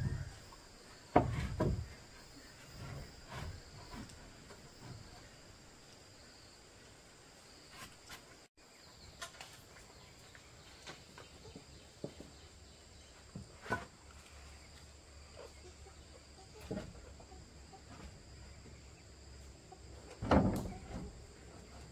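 Scattered knocks and thumps, loudest about a second in and again near the end, over a steady high insect drone.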